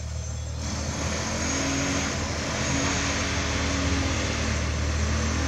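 An engine droning steadily, swelling a little louder in the middle.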